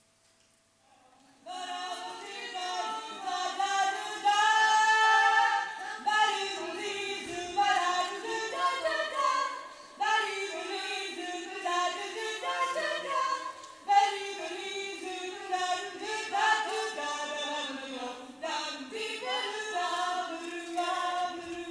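A group of women's voices singing together in harmony, with no instruments showing, starting about a second and a half in after near silence.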